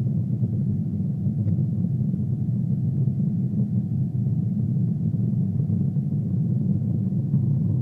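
Steady low rumble of a Boeing 777 airliner's jet engines and airflow, heard as cabin noise with a faint steady hum above it.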